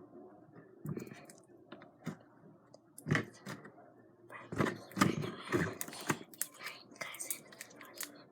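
Slime being squished and kneaded by hand, giving irregular sticky squelches and sharp little clicks and pops, busiest in the middle.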